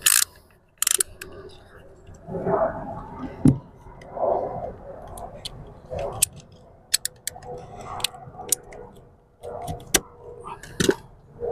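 Scattered sharp clicks, taps and knocks from hand work on parts and tools, with some low, indistinct voice sounds between them.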